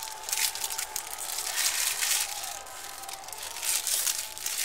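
Foil trading-card pack wrapper being torn open and crinkled by hand, in a run of rustling bursts.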